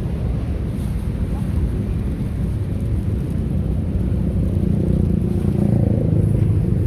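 Steady low rumble of road traffic on a busy highway, with heavy vehicles passing close by.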